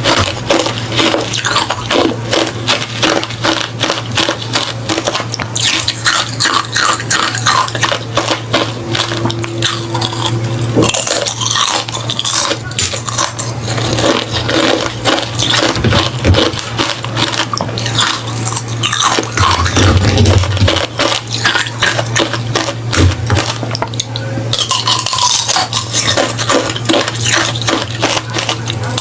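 Hollow refrozen ice being bitten and chewed close to the microphone: a dense, continuous run of sharp crunches and crackles, with some clinking and scraping of ice pieces.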